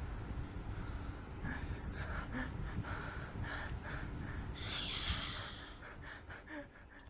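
Heavy breathing close to the microphone over low rumbling handling noise, with a run of short breaths in the middle and a louder hiss about five seconds in, fading near the end.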